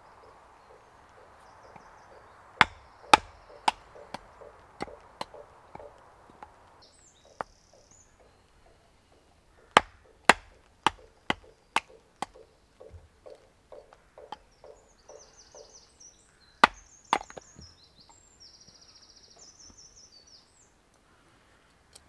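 A knife batoned through a small log: a wooden baton knocks on the knife's spine to split the wood. The strikes come in three runs, about 2.5 s in, about 10 s in and a pair near 17 s, each run starting hard and getting lighter.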